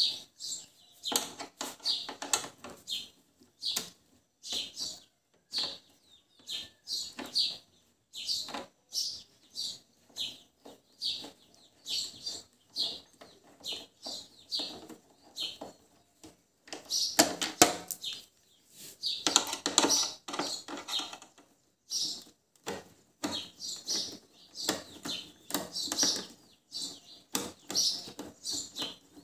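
A hand screwdriver works loose the screws holding the old bubble visor on a Bajaj Pulsar 220F's front fairing, making short high squeaks and clicks in quick, irregular succession. A little past the middle comes a louder stretch of scraping and rattling as the parts are handled.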